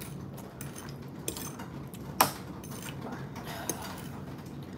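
Metal fork clinking and scraping against a ceramic plate while eating noodles: a few light clinks, with one sharper clink a little past two seconds in.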